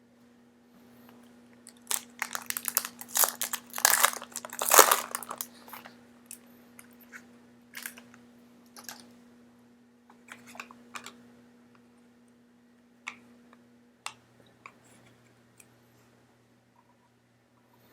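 Crinkling and crunching of a trading card pack's foil wrapper as it is handled and opened, dense for about four seconds, then scattered light clicks and taps as the cards are handled.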